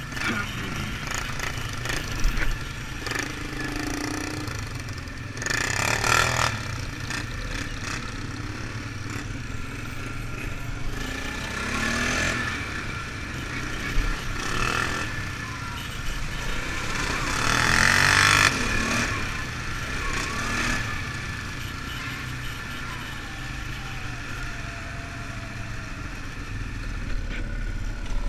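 ATV engine running under way, the revs rising and falling with several louder bursts of throttle, the biggest about six, twelve and eighteen seconds in.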